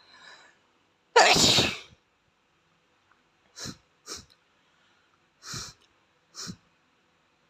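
A boy sneezes loudly once, about a second in, after a faint breath. Four short, much quieter bursts follow over the next few seconds.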